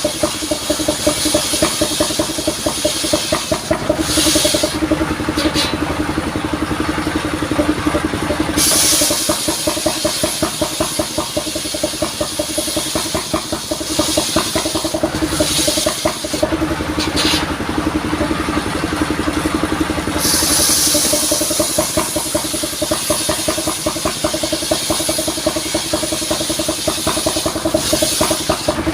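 Vehicle-mounted sawmill running: its engine keeps a steady, throbbing note, while a high hissing noise comes and goes in stretches of several seconds, as the saw cuts through coconut-palm wood.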